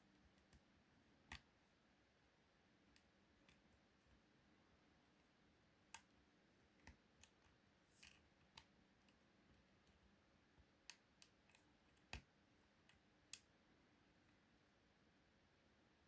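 Faint, irregular small metallic clicks of a lock pick and tension wrench working the pins of a 5-pin euro lock cylinder, about a dozen scattered clicks over a quiet background.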